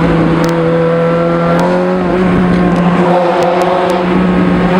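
Straight-piped Ferrari F430 V8 running under way, heard from inside the open-topped car. The engine note holds steady, then rises slightly in pitch about two seconds in.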